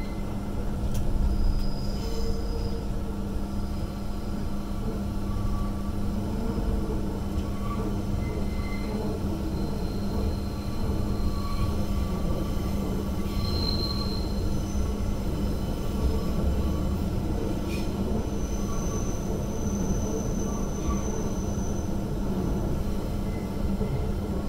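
Queensland Rail EMU electric train heard from inside the carriage while running: a steady rumble of wheels on rail with a constant hum, and short high wheel squeals now and then, the longest about three-quarters of the way through.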